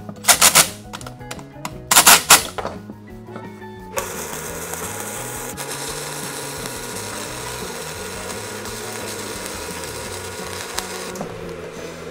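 A DeWalt 20V cordless driver runs in short bursts. Then a Miller 120-volt flux-core wire welder lays a weld as a steady hiss for about seven seconds, which stops about a second before the end.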